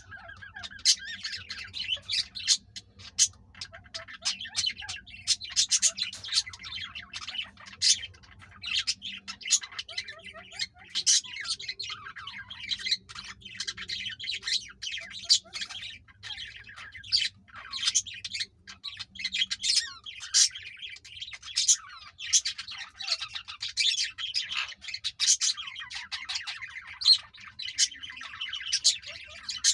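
Indian ringneck parakeets chattering: a quick, unbroken run of short, high chirps and squawks, several a second, from a pair in a mating attempt.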